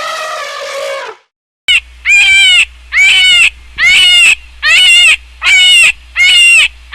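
An animal calling. One drawn-out call comes first, then after a short pause a fast, very loud run of about seven arching calls, roughly one and a half a second, over a low hum.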